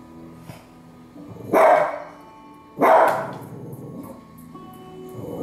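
Cavalier King Charles Spaniel barking twice, about a second and a half apart, at grizzly bears on a television.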